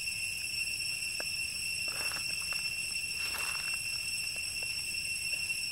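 Steady high-pitched insect drone, one tone with overtones, holding level throughout. Brief rustles about two and three and a half seconds in, and a few light ticks.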